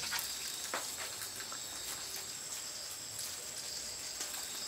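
Rural outdoor ambience dominated by insects droning steadily in a thin high-pitched tone, with a faint click about a second in.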